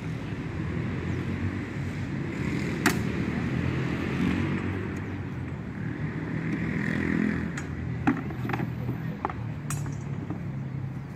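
Training axes and round shields knocking together in a sparring bout: a sharp clack about three seconds in, then a quick run of knocks about eight to ten seconds in. Under it runs a steady hum of city traffic.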